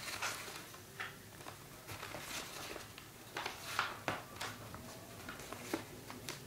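Paper and scotch tape being handled while a rolled paper tube is taped together: light rustling with scattered small clicks and crackles, a little louder around four seconds in.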